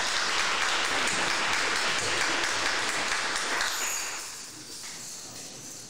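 Audience applauding, dying away over the last two seconds.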